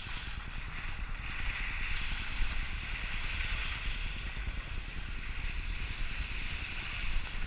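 Wind noise on a car-mounted GoPro's microphone while driving, a steady low rumble with road hiss that swells about a second in.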